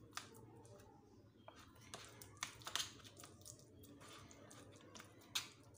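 White plastic spoon mashing and pressing soft boiled potato and banana peels against a plastic strainer: faint squishing with a few sharp clicks and scrapes of spoon on plastic, the loudest near the end.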